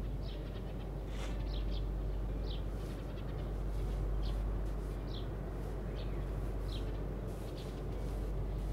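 Small birds chirping: many short, high, falling chirps scattered over a steady low hum.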